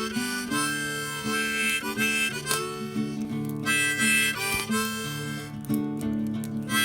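Harmonica playing a melody over acoustic guitar accompaniment, in a blues-folk style.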